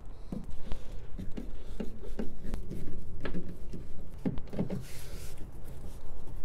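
Self-tapping screws being driven by hand with a screwdriver through a 6.5-inch component midrange speaker into its plastic spacer bracket adapter in a car door: irregular clicks, taps and creaks as the screws bite, with a short hiss about five seconds in.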